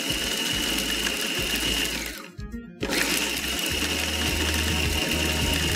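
Electric food processor running, grinding broken rotis into coarse crumbs, with a steady high motor whine. It stops about two seconds in and starts again under a second later, pulsed in two bursts.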